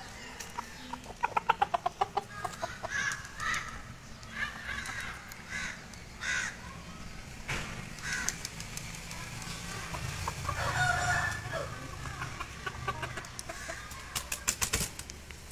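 Chickens clucking: a quick run of clucks about a second in and another near the end, with single short calls in between.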